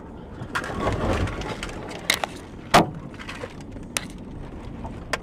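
Vehicle collision on the road ahead heard from a following car: a burst of crunching noise, then several sharp knocks, the loudest a little under three seconds in.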